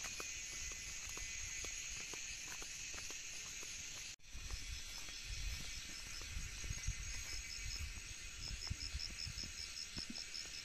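Steady high-pitched insect chorus. After a brief break about four seconds in, a rapid train of high chirps at about five a second joins it, over low irregular thumps of footsteps.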